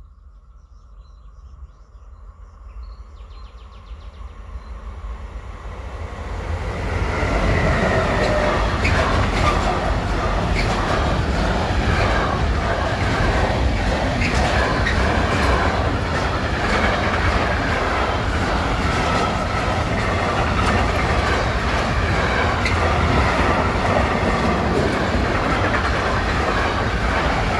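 Freight train of Eas open wagons, hauled by a class 193 electric locomotive, approaching and growing louder over about the first seven seconds. Then the wagons roll past with a steady, loud clatter of wheels over rail joints.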